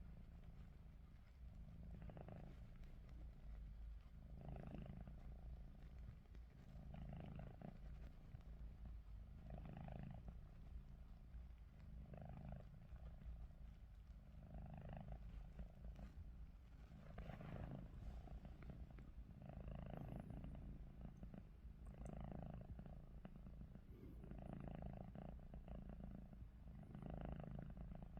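A domestic cat snoring faintly, one snore on each breath, about once every two and a half seconds.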